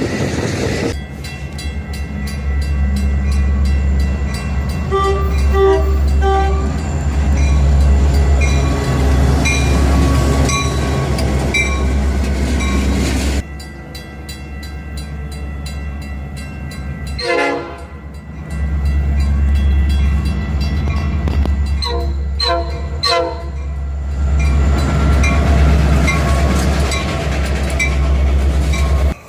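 Locomotive air horns sounding in short blasts over the steady low rumble of passing trains, with the recording cutting abruptly between different trains. Three quick horn blasts come close together near the end.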